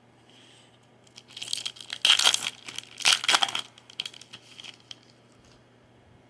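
Foil wrapper of a Topps baseball card pack crinkling and tearing as it is opened, with two loud bursts about two and three seconds in, then smaller crinkles.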